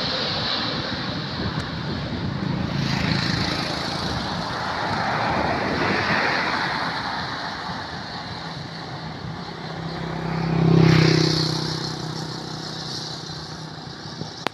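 Airbus A321neo jet engines on landing approach: a steady roar, loudest at the start, that thins as the airliner descends toward the runway. A louder rise and fall with a low steady hum peaks about eleven seconds in.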